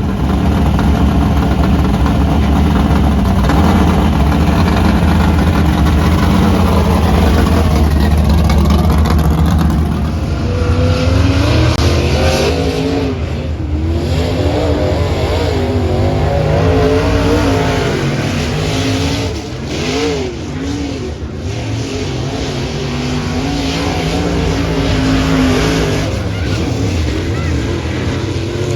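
Dirt-track modified race car engines, running at a steady low drone at first. From about ten seconds in they rev up and down repeatedly as the cars accelerate and lift around the track.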